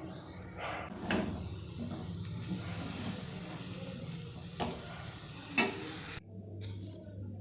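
Raw banana pieces sizzling in a frying pan as they are stirred, with two sharp knocks of the spatula against the pan; the sizzle cuts off suddenly near the end.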